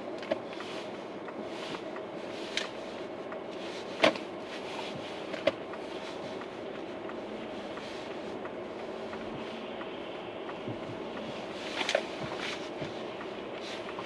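Steady running hum of a moving vehicle heard from inside, with a steady whine and a few sharp clicks or knocks, the loudest about four seconds in and another cluster near the end.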